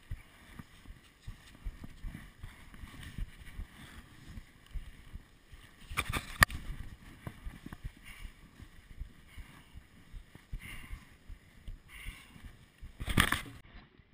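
Irregular scuffing and thumping of footsteps in mud and gloved hands working a rope as a runner hauls himself up a steep slope, with two louder noisy bursts, about six seconds in and near the end.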